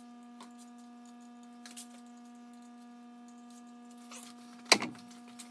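Steady electrical hum with faint scattered ticks, and a single sharp knock near the end as tools are picked up and set down in the garage.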